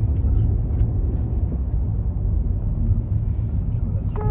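Steady low rumble of a car cabin on the move, from road and engine noise. A short electronic beep starts right at the end.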